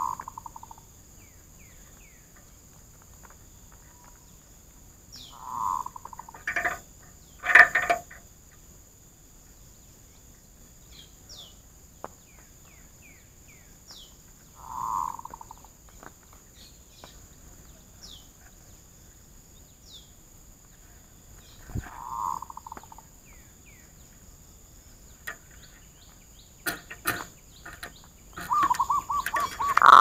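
Zebra doves cooing: short rolling coos every several seconds, and a longer rapid run of coo notes near the end. A few sharp knocks a quarter of the way in, the loudest sound here, with faint high chirps of small birds between the coos.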